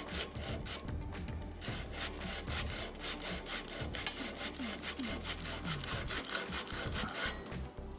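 Sandpaper on a wooden block rubbed lightly back and forth over the flat-mount brake caliper mounting surface of a carbon bike frame, in quick, even strokes. The sanding takes the paint down to flatten the mount so the caliper sits without rocking.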